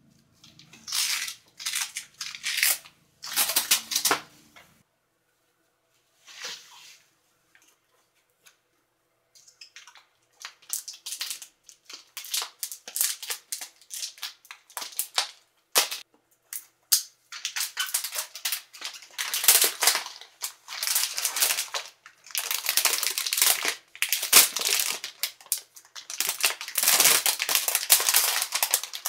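Protective sheet and plastic film wrapping being pulled and handled, rustling and crinkling: a few short bursts, a quiet pause of several seconds, then almost continuous crinkling that grows denser toward the end.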